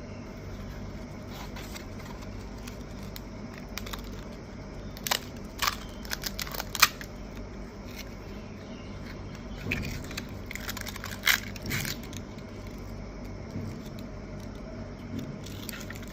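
Scattered light clicks and taps over a steady low hum, grouped about five to seven seconds in and again around ten to eleven seconds.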